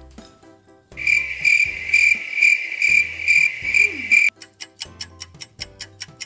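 Cricket chirping sound effect: a high, even chirp about twice a second that starts suddenly about a second in and cuts off abruptly after about three seconds, over a low background music beat. A fast, even ticking follows near the end.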